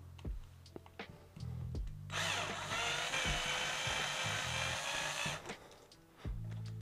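Cordless drill spinning a hex bit to unscrew the output axle, running steadily for about three seconds from about two seconds in.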